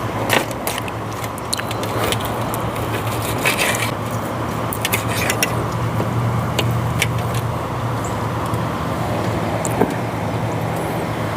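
Steady wind noise on the microphone over a low hum, with scattered small clicks and scrapes of cutlery and eating as steak and fries are started on.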